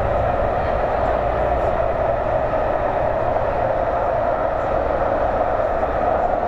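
A steady, continuous mechanical rumble with a strong mid-pitched hum, unchanging in level throughout.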